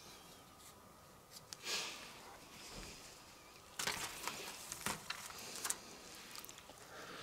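Faint crinkling and clicking of a comic book in a clear plastic sleeve being handled and set into the wire pocket of a spinner rack, with a brief rustle about two seconds in and a denser run of crinkles and clicks about four to six seconds in.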